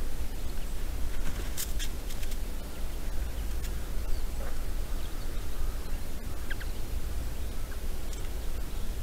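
Steady low rumble of outdoor background noise on a camera trap's microphone, with a few faint clicks and brief high chirps scattered through it.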